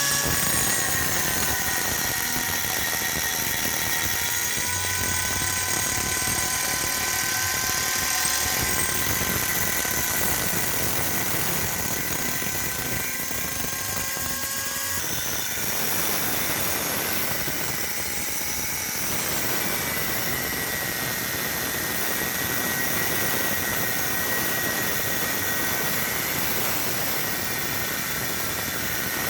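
Angle grinder running continuously against the steel of a leaf spring, a steady rough grinding noise with a thin whine that sags and shifts as the disc is pressed in. About halfway through the whine breaks off for a few seconds and comes back a little higher.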